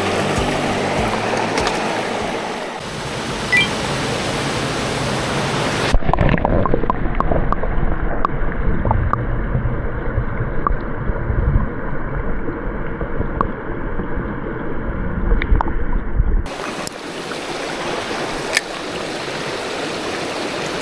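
Mountain stream water rushing steadily. For about ten seconds in the middle the sound turns muffled, with the high end gone, before the open rushing returns.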